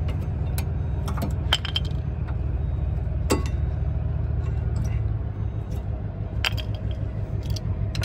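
Sharp metallic clinks and scrapes as worn rear disc brake pads and their clips are pried out of the caliper bracket with a screwdriver. A handful of separate clinks sit over a steady low rumble.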